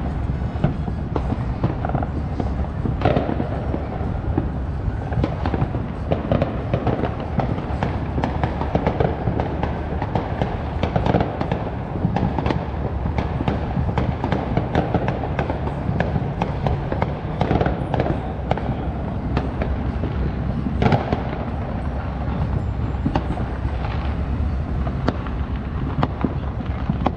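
Many fireworks and firecrackers going off across the neighborhood at once: a continuous stream of bangs and crackles of varying loudness, over a constant low rumble. A few sharper, louder bangs stand out, one about three seconds in and another near the twenty-one-second mark.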